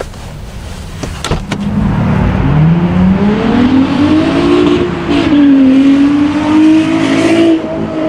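A car's engine revving as the car accelerates away, its pitch climbing, dipping briefly about five seconds in and then climbing again, loud throughout, with a few sharp clicks just before it starts.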